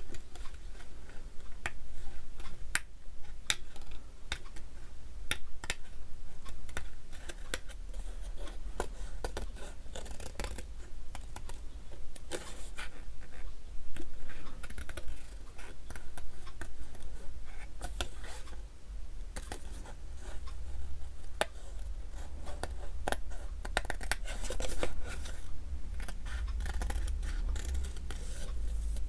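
Scissors snipping through paper in many short, irregular cuts, with some scratching and scraping of paper between them.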